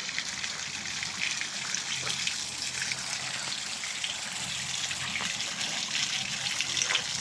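Water of the Triton-Bells fountains splashing and falling steadily, a continuous rush with many small splashes in it.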